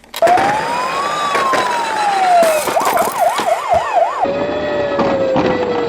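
Emergency-vehicle siren starting abruptly. It rises, then falls in a slow wail, switches about halfway through to a fast warble of roughly three to four cycles a second, and falls back into a slow, dropping wail, over a noisy background with scattered sharp knocks.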